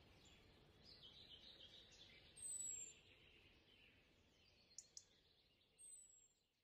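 Near silence with faint bird calls: a thin, high whistle that falls in pitch, twice, with softer chirping between and two small clicks about five seconds in.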